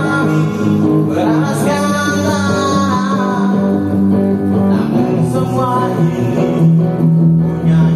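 A man singing into a handheld microphone with guitar accompaniment, holding long notes, as a sound check of the microphone and speakers.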